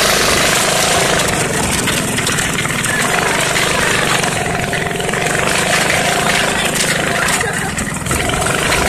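Off-road go-kart's small engine running steadily while the kart drives along a dirt trail, with heavy wind rush on the microphone.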